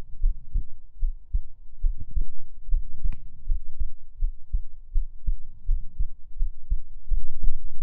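Human heartbeat heard close up: a steady rhythm of low, muffled double thumps. A few faint clicks sit over it, the sharpest about three seconds in.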